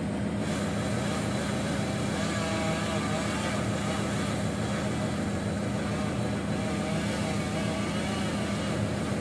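An excavator's diesel engine running steadily while a chainsaw cuts the base of a standing tree that the excavator is pushing. The saw's pitch wavers as it works through the trunk.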